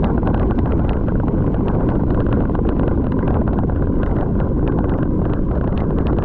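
Heavy wind buffeting the microphone, a steady low rumble, with a rapid scatter of small clicks and rattles through it.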